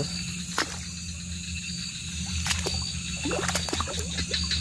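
Footsteps and rustling through wet grass and mud at a swamp's edge, with scattered light crackles, over a steady high trill of insects.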